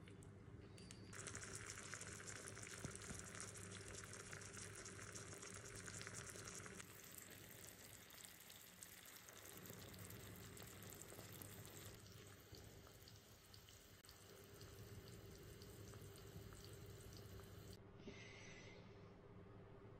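Olive oil sizzling softly around broccoli stems frying in a small pot over a charcoal brazier, a steady hiss that is strongest for the first several seconds and then quieter. It changes abruptly near the end.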